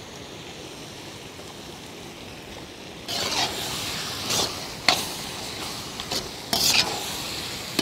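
Onion-tomato spice masala sizzling in a black iron kadai while a steel ladle stirs it. It starts as a quieter steady sizzle, then about three seconds in the stirring gets vigorous: louder sizzling with several sharp scrapes and clinks of the ladle against the pan.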